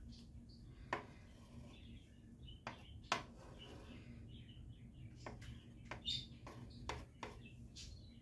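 Faint, scattered ticks and small crackles from a buttered grilled cheese sandwich just starting to fry in a nonstick pan, over a low steady hum.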